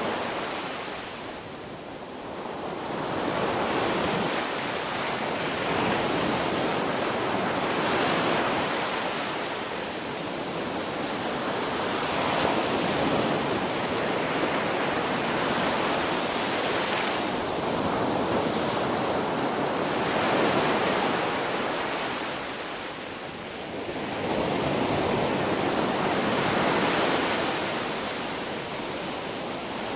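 Ocean waves breaking on a beach: continuous surf wash that swells and fades every few seconds, with quieter lulls between the bigger waves.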